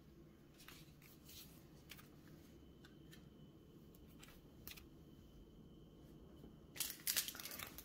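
Pokémon trading cards being handled on a countertop: faint scattered taps and slides, then a louder rustle and crackle of cards being moved near the end.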